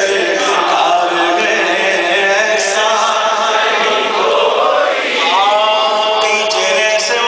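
Men's voices chanting a naat, an Islamic devotional poem, in long drawn-out sung lines with held notes. One rising sung phrase comes a little after five seconds.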